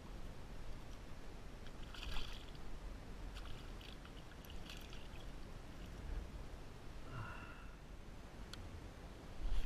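A hooked fish splashing and thrashing at the water's surface beside a kayak, in several short bursts over a steady low rumble.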